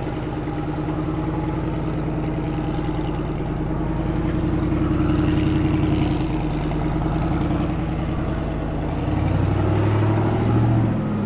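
Rock buggy's engine running under load as it crawls up a steep rock chute, the revs rising about halfway through and again near the end.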